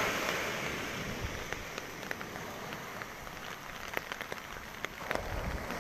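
Light rain, with scattered sharp ticks of drops landing close by over a steady hiss.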